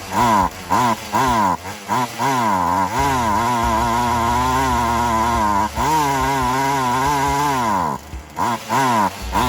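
Poulan Wild Thing 2375 two-stroke chainsaw engine being revved. Quick throttle blips at first, then held at high revs for about two seconds, a brief drop, held high again, and more quick blips near the end.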